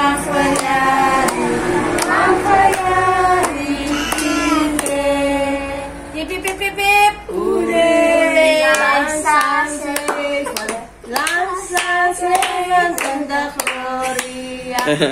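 A small group of adults and children singing a birthday song together while clapping hands in time, about two claps a second.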